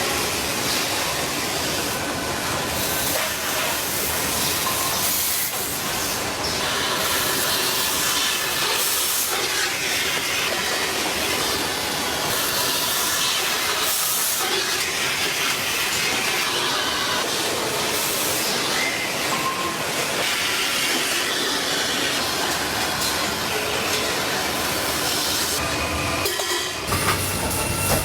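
Stainless steel bottle factory machinery running: a steady, loud hissing and clattering din, with brief louder surges every few seconds.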